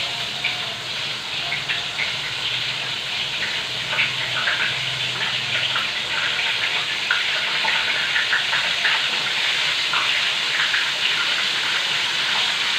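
Food frying in hot oil: a steady sizzle with frequent small crackles and pops.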